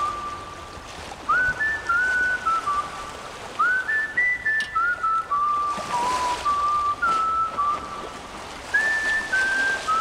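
A whistled tune: clear single notes, each scooping up into a held pitch, in short phrases of several notes, with new phrases starting about a second in, near the middle and near the end, over a faint steady hiss.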